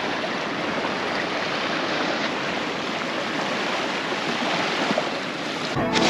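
Small waves washing up onto a sandy beach, a steady even rush of surf.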